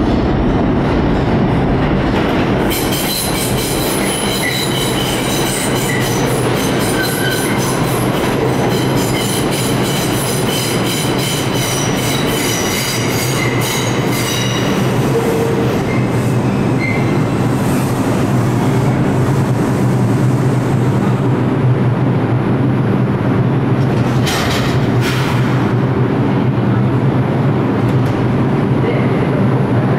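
New York City subway 4 express train pulling into the station. For the first half its wheels clatter rhythmically over the rail joints with high squealing. It then slows to a stand with a steady hum, and two short hisses come about 24 seconds in.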